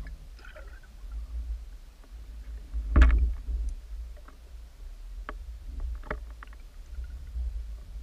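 Underwater sound picked up by a submerged camera: a steady low rumble of moving water, with scattered sharp clicks and knocks. A louder knock comes about three seconds in.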